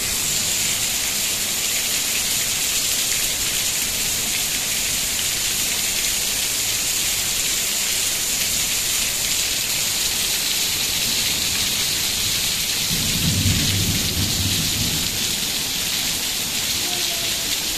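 Heavy rain falling steadily in a thunderstorm, with a low roll of thunder rumbling for about two seconds late on.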